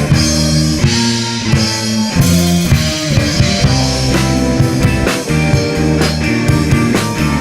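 Rock band playing live: electric guitar and bass over a drum kit keeping a steady beat.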